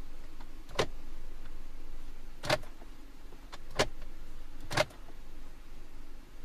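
Glove box lid of a 2019 Cadillac XTS being shut and opened by hand: four sharp clicks and knocks of the lid and its latch, spaced about a second apart.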